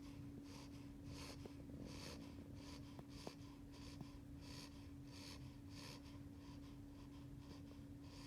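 A sleeping 8-week-old beagle puppy's little snoring: quick, faint, airy breaths repeating about two a second, over a steady low hum.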